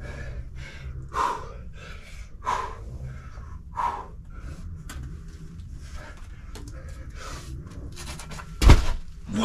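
A boulderer breathing hard while climbing, short sharp exhalations every half second or so, with three stronger forced exhales a few seconds apart. Near the end there is a heavy thud as he comes off the problem.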